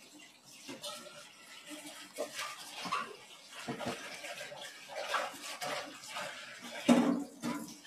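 Close-up eating noises of someone eating flat rice noodles: irregular wet slurping and chewing, with one louder knock or mouth sound about seven seconds in.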